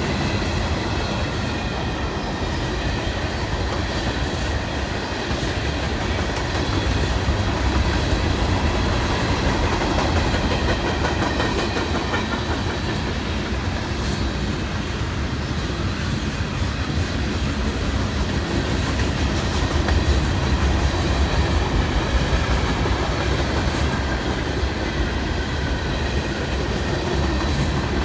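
Freight train cars rolling past at close range, a steady rumble with the clickety-clack of wheels over the rail joints.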